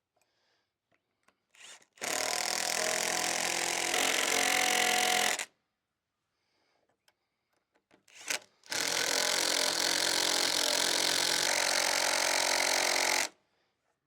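Power drill running in two long pulls of about three and four and a half seconds, each after a short blip of the trigger, driving fasteners home.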